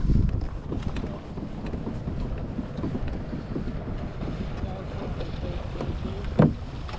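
Wind buffeting the action-camera microphone over the low churning of a Hobie pedal kayak's drive moving through calm water, with one sharp knock near the end.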